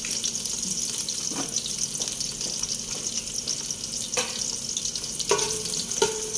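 Food frying in a hot pan, a steady sizzling hiss, with the scattered scrapes and knocks of a utensil stirring it.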